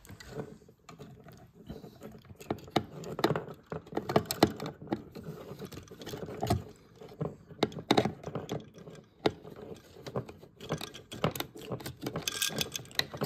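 Irregular clicks, taps and scrapes of a screwdriver and stiff wires being worked inside a metal electrical switch box.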